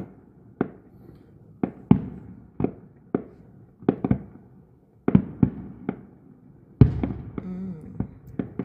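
Aerial firework shells bursting overhead: a dozen or more sharp bangs at irregular intervals, some in quick pairs, the loudest about seven seconds in.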